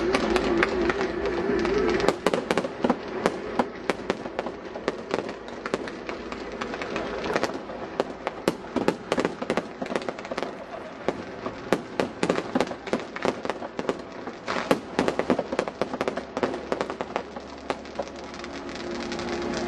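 Fireworks display going off: a rapid, irregular run of sharp pops and crackles, dense from about two seconds in until near the end.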